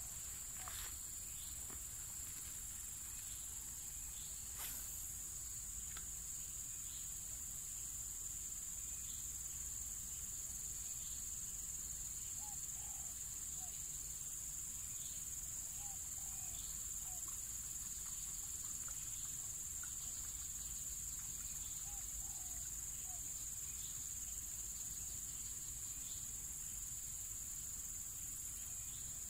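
Steady, high-pitched drone of an insect chorus, with faint short chirps now and then in the middle stretch.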